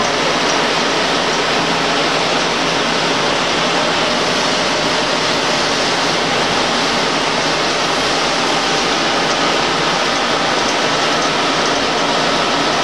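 Six-spindle Cone automatic bar lathe running under power, a loud, steady rushing noise of the machine at work with a faint steady hum in it.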